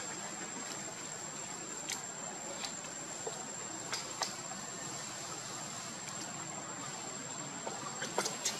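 Quiet outdoor background with a steady high-pitched whine and faint hiss, broken by a few light ticks and rustles of macaques moving over dry leaf litter, coming more often near the end.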